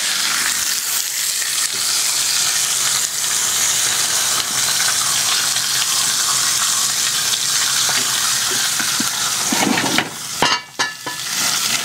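Steady frying sizzle from sliced onions and red peppers sautéing in a skillet, with a steak searing in a hot grill pan alongside. A wooden spatula stirs and scrapes through the vegetables. Near the end the sizzle dips briefly and a few knocks are heard.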